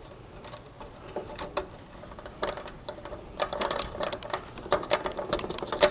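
Irregular small clicks and rattles of a hand crimping tool and wire terminals being handled, with a busier run of clicks in the second half.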